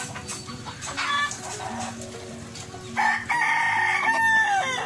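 A rooster crowing once, one long call of nearly two seconds that drops in pitch at its end, after a short cluck about a second in.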